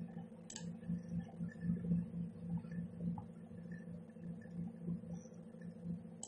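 Low, steady, faintly pulsing background hum, with two short sharp clicks of a computer mouse: one about half a second in and one at the end.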